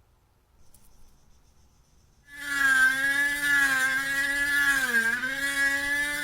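A small electric motor starts up about two seconds in and runs with a steady, high buzzing whine, its pitch dipping briefly about five seconds in.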